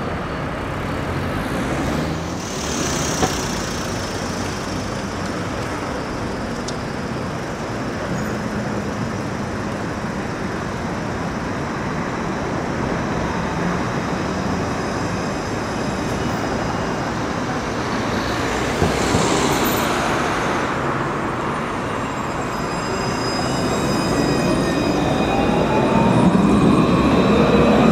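Steady street traffic noise, with vehicles swelling past twice. Near the end an Alstom Citadis low-floor tram comes up and passes close by, its drive giving a rising whine over the growing rumble of its wheels on the rails.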